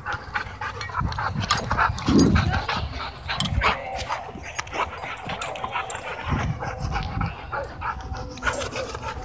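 Dogs play-fighting up close: a German Shorthaired Pointer and a pit bull wrestling, with dog vocalisations and a steady run of quick clicks and scuffles. There is a louder stretch about two seconds in.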